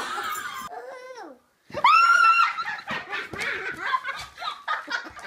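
A short exclamation, then after a brief pause a woman lets out a high shriek and breaks into loud laughter.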